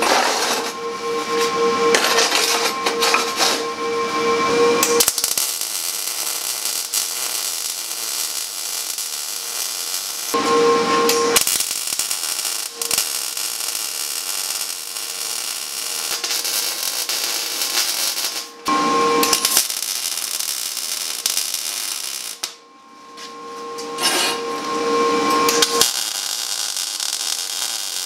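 MIG welder laying welds on steel angle iron and diamond plate: a steady crackling sizzle in four runs of a few seconds each, the longest about seven seconds, with short pauses between them.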